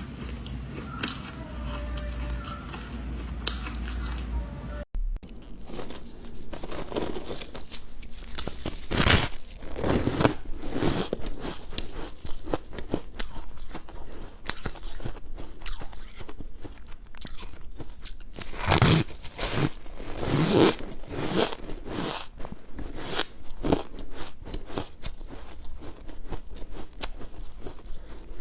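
Close-up crunching of freezer frost being bitten and chewed: many sharp, irregular bites, a few much louder than the rest. For the first five seconds a steadier background with faint tones plays, cutting off suddenly before the crunching starts.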